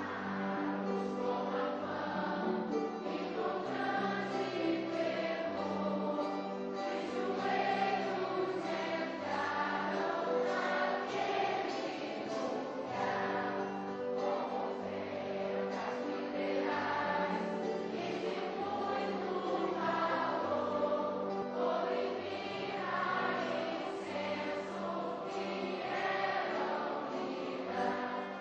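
Large mixed youth choir singing in several parts, accompanied by string instruments.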